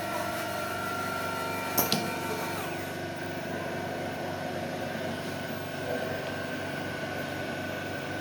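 Machinery running steadily with a hum of several held tones, and a sharp clack just before two seconds in, followed by a brief falling tone.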